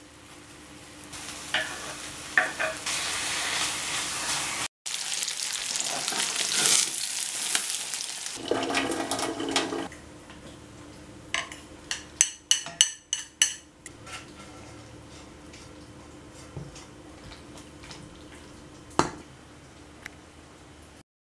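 Chicken sizzling and frying in a pan, a loud steady hiss with crackle. Later comes a quick run of about eight sharp clinks of cookware, and one knock near the end.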